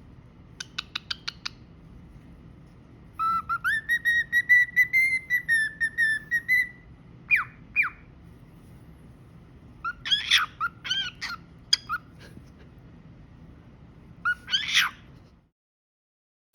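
Pet cockatiel whistling: a quick run of ticks, then a long wavering whistled phrase, a couple of short chirps, and bursts of louder calls near the middle and near the end.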